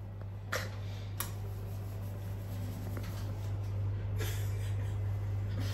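Steady low hum of room tone, with three faint clicks, near the start and about four seconds in.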